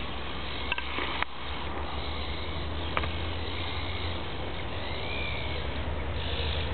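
Steady background hiss with a low hum, broken by a few faint clicks about one and three seconds in, and a faint short whistled note near five seconds in.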